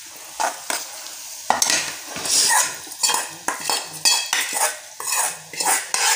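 A steel spoon scraping and clinking against a small steel tempering pan as hot oil tempering is tipped into cooked toor dal, with a sizzle as the oil hits the dal. The scrapes come irregularly, several times a second at times.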